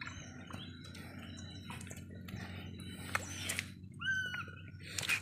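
Birds chirping in short scattered calls, with one louder, clearer call about four seconds in.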